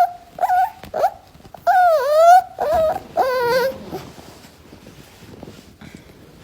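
Dog whining in about six high, wavering cries over the first four seconds, the longest and loudest one about two seconds in.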